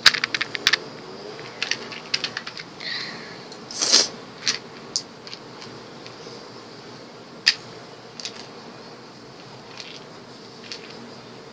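A small plastic Mintia mint case being handled and opened, with tablets rattling: a quick run of sharp clicks at the start, then scattered single clicks and taps, with a louder burst about four seconds in.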